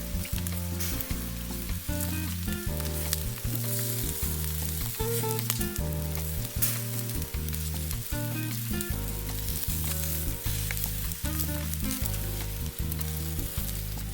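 Food sizzling with a steady crackling hiss, under background music that has a steady beat and a stepping bass line.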